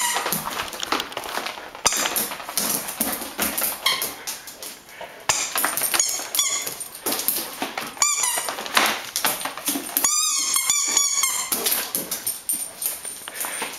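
A squeaky ball being chewed and squeezed by a Great Swiss Mountain Dog: short squeaks now and then, with a quick run of several about ten seconds in, over scuffling and clicking noise.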